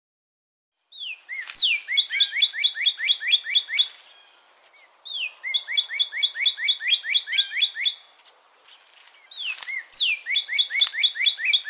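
Northern cardinal singing three phrases. Each opens with a slurred whistle and runs into a fast series of about ten repeated down-slurred notes, roughly five a second.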